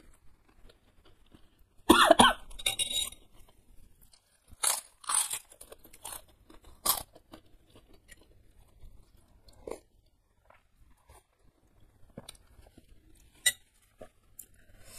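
Crunching and chewing of kerupuk, Indonesian crackers, eaten by mouth. The loudest crunches come about two seconds in, followed by scattered single crunches and quieter chewing.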